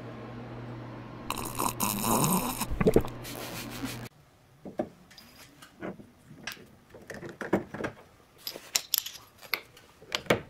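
A steady low hum, with a loud hiss lasting about a second and a half. About four seconds in this gives way to scattered light clicks and taps of a 3D-printed TPU bushing and metal washers being handled and fitted into a roof bracket.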